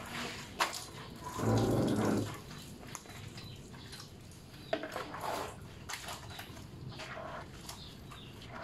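Water poured from a plastic scoop splashes over a motor scooter about a second and a half in. After that come scattered small clicks and short splashy bits of water as the scooter is washed by hand.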